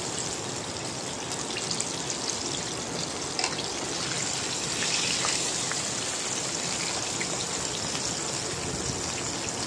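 Battered chicken pieces frying in hot oil: a steady sizzle with scattered small crackles and pops.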